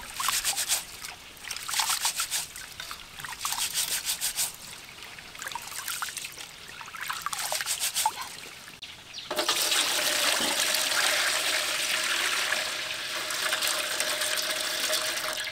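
Rice being washed by hand in water in a steel bowl: quick, irregular swishing and splashing as the grains are squeezed and rubbed. About nine seconds in, this gives way to a steady stream as the cloudy rinse water is poured off into another steel bowl.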